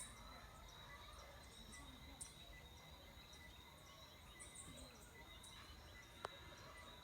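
Near silence: faint outdoor farm ambience with scattered faint bird chirps and a steady faint high insect-like tone, and a single sharp click a little after six seconds in.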